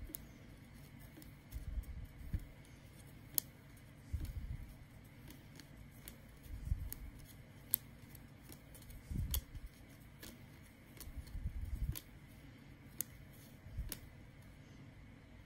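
1993 Topps baseball cards being flipped off a stack one at a time and dropped onto a pile: about a dozen sharp snaps and flicks of card stock, with soft rubbing and handling bumps every second or two.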